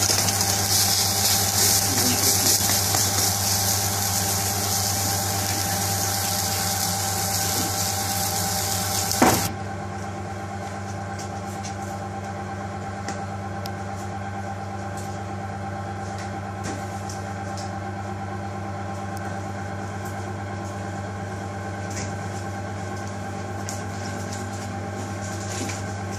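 An omelette frying in a pan over a gas burner, sizzling steadily over a steady low hum. About nine seconds in there is a single knock and the sizzling cuts off, leaving only the hum and a few faint clicks.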